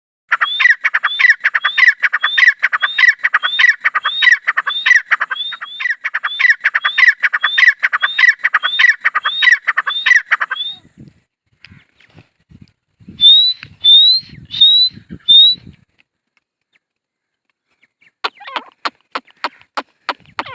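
Grey francolin (teetar) calling: a fast, regular series of rising whistled notes, about two a second, for about ten seconds. After a short pause come four louder rising whistles, and near the end a quick run of sharp clicking notes.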